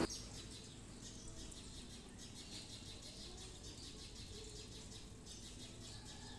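Faint crackle and fizz of liquid coming to a simmer in an aluminium pan, with light stirring from a steel ladle.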